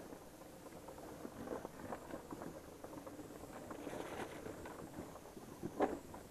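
Motorcycle tyres crunching slowly over loose rocks and dirt, with irregular small clicks and rattles and a louder knock near the end.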